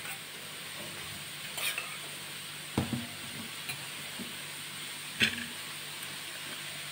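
A steel spoon knocking and clinking against steel bowls a few times while curd is scooped onto chicken, the loudest knock about three seconds in, over a steady background hiss.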